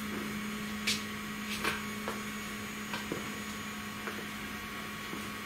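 3018 CNC router's X-axis stepper motor driving the carriage along at a steady 500 mm/min feed, a steady low hum, with a few light clicks over it. It is a 100 mm test move to check the steps-per-millimetre setting.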